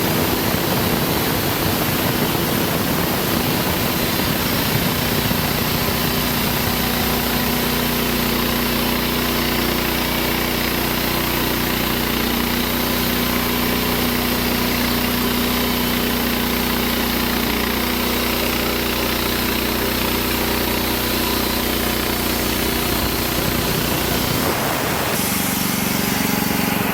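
Portable bandsaw sawmill running steadily, its engine driving the band blade through a white pine log. About 24 seconds in the engine note changes and drops lower.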